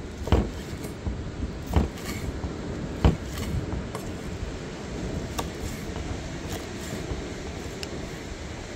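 Chef's knife chopping fried octopus on a wooden cutting board: three solid knocks of the blade on the board in the first three seconds, then fainter taps, over a steady background hiss.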